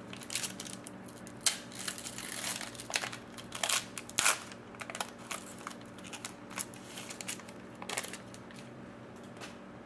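Crinkling and crackling of a trading-card pack wrapper and cards being handled, busiest in the first half, then a few scattered crackles.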